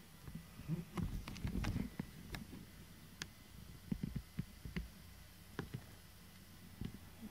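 Light clicks and soft thumps from a cat moving about close to the microphone on a wooden floor, a quick cluster about a second in, then single clicks every half second or so.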